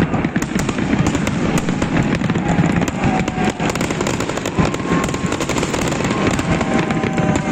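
Fireworks salute: a dense, continuous crackle of many sharp cracks and pops in rapid succession.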